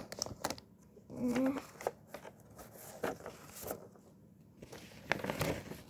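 Sheets of paper being handled and rustled, with small clicks and knocks, heavier rustling near the end.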